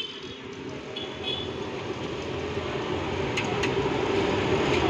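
Steady street traffic noise, growing gradually louder, with a few light clicks.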